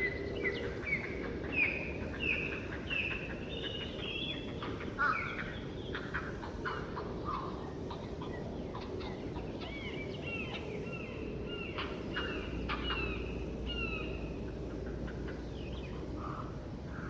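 Forest birdsong: one bird repeats a short, falling whistled note about every two thirds of a second, in two runs, while other birds chirp around it over a soft steady background hiss.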